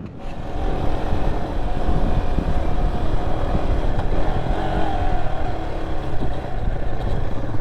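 Off-road motorcycle being ridden: the engine running under heavy rumble and wind rush, getting louder about half a second in as it picks up speed.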